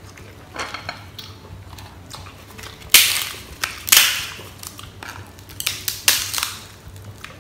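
Crisp rice paper (bánh tráng) cracking and crunching in a series of sharp crunches, the loudest about three, four and six seconds in.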